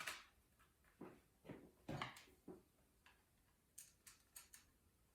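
Light, irregular clicks and taps of hands and small tools working the wires into a plastic wall socket's screw terminals.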